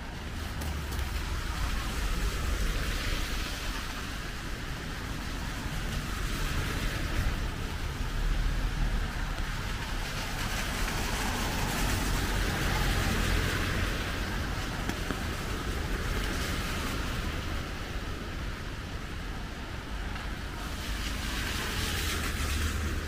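Rain falling on a city street while cars pass on the wet road, their tyre hiss swelling and fading several times over a constant low rumble.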